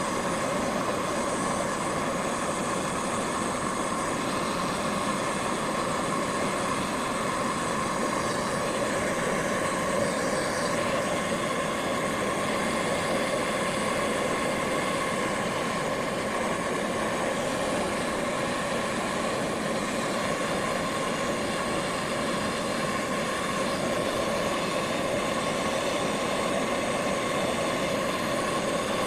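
A machine running steadily: a continuous even hum with a constant whine in it, unchanging throughout.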